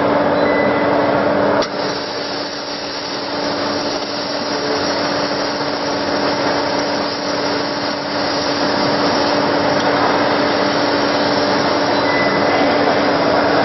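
Fiber laser cutting machine running while cutting 4 mm carbon steel sheet: a steady hiss with a constant hum. There is a single click a little under two seconds in, and the sound grows slightly louder around the middle as the cut gets under way.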